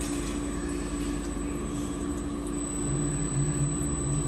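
Automatic multi-spindle drilling and tapping machine running: its spindle motors give a steady mechanical hum, and a deeper hum joins about three seconds in.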